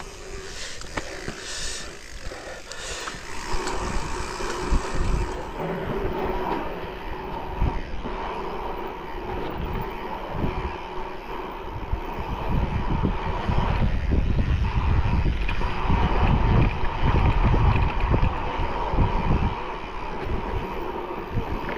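Mountain bike rolling over a rough trail: tyres on dirt and stones and the bike rattling, with wind buffeting the camera microphone, heavier in the second half. A faint steady whine runs through it.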